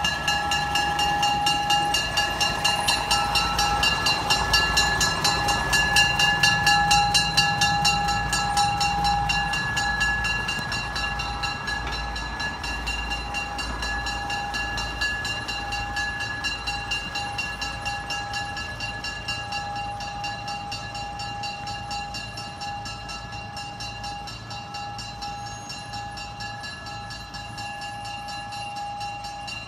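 Budd Rail Diesel Car passing close by: its diesel engines rumble loudest for the first ten seconds and then fade as the car moves away. A grade-crossing bell rings steadily, with evenly repeating strikes throughout.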